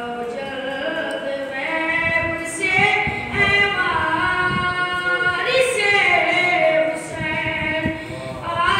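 A boy singing an unaccompanied devotional recitation into a microphone, in long, drawn-out notes that glide up and down.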